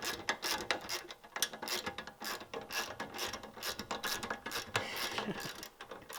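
Hand ratchet wrench clicking in quick, irregular strokes as a suspension bolt is run in.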